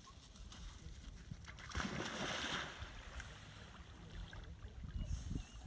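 A black retriever splashing into a pond about two seconds in, then swimming through the water.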